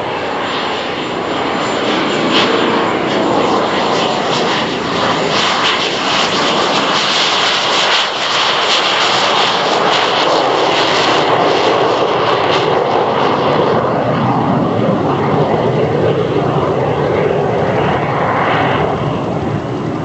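Jet Provost's Armstrong Siddeley Viper turbojet at takeoff power, accelerating down the runway and climbing away: a loud, steady jet noise with a high whine that is strongest around the middle, then a slow wavering sweep near the end as the jet passes and recedes.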